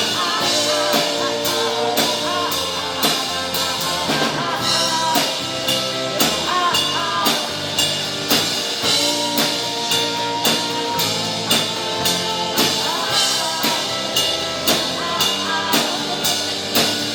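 Live rock band playing an instrumental passage: a drum kit keeps a steady beat under a wandering melodic lead line and sustained chords.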